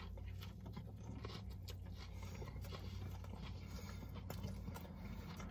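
Two people biting into and chewing cheeseburgers: faint, irregular wet chewing clicks over a steady low hum.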